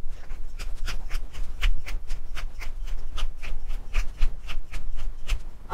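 Wooden pepper mill being twisted by hand, grinding peppercorns in a quick, even series of crunching clicks, about four to five a second.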